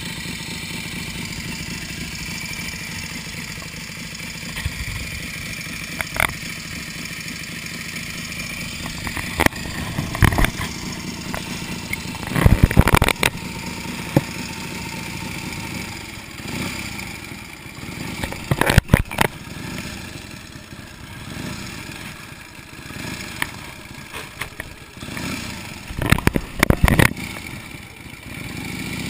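1931 Indian 101 Scout's flathead V-twin running steadily at low revs, then carrying the bike away from the curb near the end. Several loud knocks and thumps cut through the engine sound a few seconds apart.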